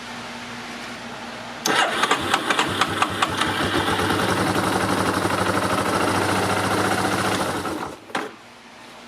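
Yamaha Terra Pro engine started: it cranks and catches about two seconds in, runs steadily for about six seconds, then is switched off. It is run only to push oil out of a loosened check bolt after the oil change, to confirm that oil is flowing.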